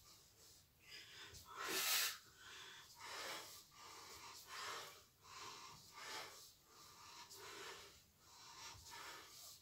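A woman's heavy breathing while doing side-lying oblique crunches: a series of short, forceful breaths every second or so in time with the repetitions, the loudest about two seconds in.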